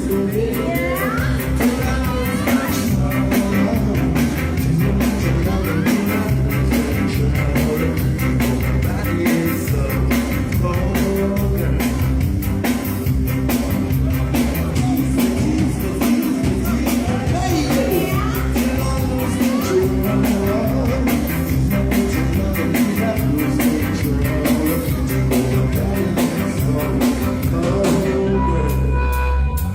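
Live reggae band music with a singing voice over a steady beat.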